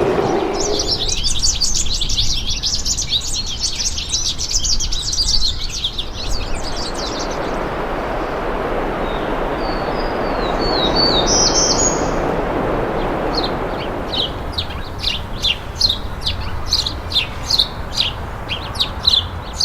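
Birds chirping: a dense chorus of many overlapping chirps for the first several seconds. A steady rushing noise follows, with a few short calls. From about thirteen seconds in, sharp chirps repeat a few times a second.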